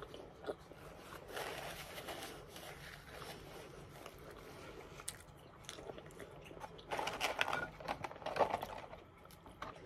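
Close-up mouth sounds of chewing and biting McDonald's fast food, soft crunches and wet clicks. About seven seconds in comes a louder run of crackling as a hand goes into the paper French fries carton.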